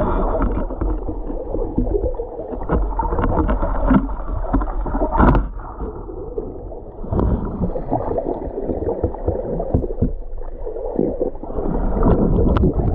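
Muffled underwater water noise, sloshing and bubbling, with many irregular knocks and clicks, as an Asian elephant swims and plays in the water around an underwater camera.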